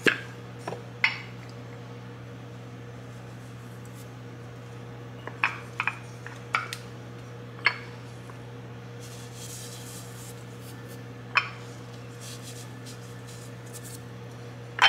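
Scattered light clinks and knocks of kitchenware, ceramic salt and pepper canisters and a stainless steel mixing bowl, about eight in all, over a steady low hum.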